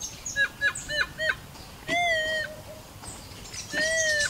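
Minelab CTX 3030 metal detector sounding as its coil sweeps over a mineralized brick with a coin beneath: a quick run of short tones that rise and fall in pitch, then two longer wavering tones about two and four seconds in. The tester reads the result as no coin found.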